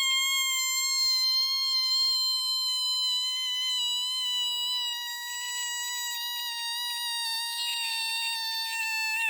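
A boy's single long, high-pitched scream held on one note, with a slight wobble and a slow sag in pitch toward the end.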